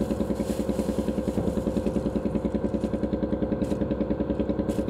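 An engine idling steadily with a rapid, even chug.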